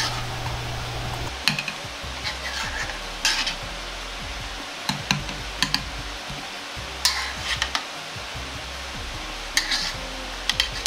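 Metal wok ladle clinking and scraping against the wok and a china plate in short, scattered strokes as saucy hamburg steaks are served out. A steady kitchen hiss runs underneath.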